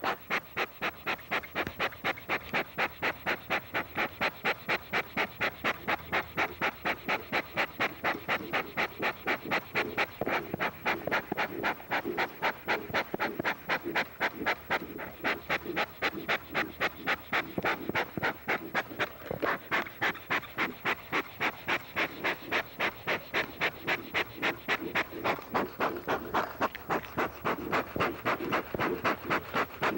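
Hand bellows of a bee smoker pumped rapidly, each squeeze puffing air through the fire chamber at about three puffs a second, to get freshly lit fuel going and build up volumes of smoke.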